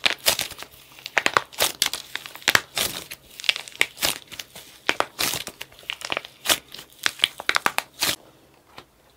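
Hardened plaster clay crackling and crunching as it is squeezed and torn apart by hand inside a lump of soft clay: a rapid, uneven run of crisp crackles that stops near the end.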